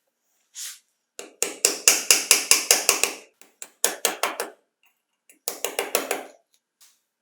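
Rapid runs of sharp mechanical clicks, about five a second, in three bursts. The first and longest starts about a second and a half in.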